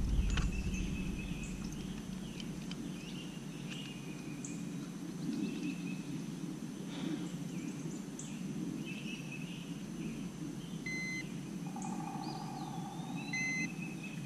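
Birds chirping and calling with many short chirps and a few whistled notes, over steady low outdoor background noise.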